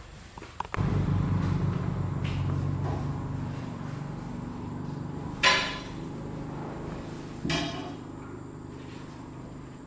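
A low machine hum starts suddenly just under a second in and slowly dies away, with two sharp metallic clinks partway through.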